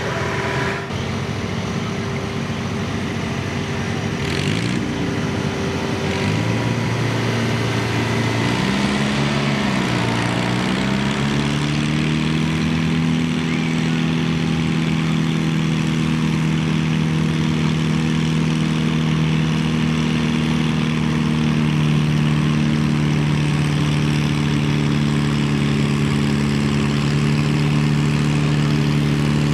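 Antique Farmall pulling tractor's engine revving in a few rising and falling sweeps, then held steady at high speed under throttle.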